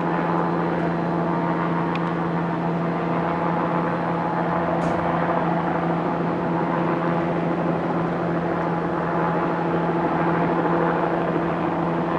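Steady mechanical hum of a running engine or machine, holding one low pitch with a noisy rush over it.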